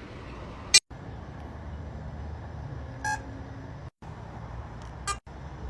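A sharp click about a second in, a short electronic beep around three seconds and another click near the end, over a steady low hum, the sound cutting out for an instant after each: flip phone beeps and clicks during testing.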